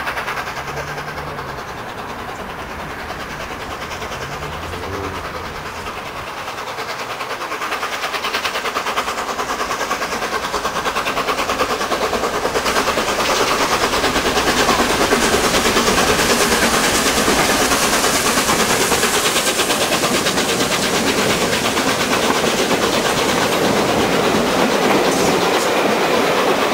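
Three-cylinder Peppercorn A1 Pacific steam locomotive working a train up a steep 1-in-78 climb, which it makes light work of. The sound grows louder from about eight seconds in, then holds loud and steady as the train runs by.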